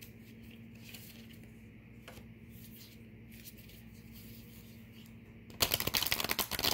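A deck of tarot cards being shuffled: a quick, dense run of card flicks lasting about a second near the end, after several seconds of quiet room tone with a faint steady hum.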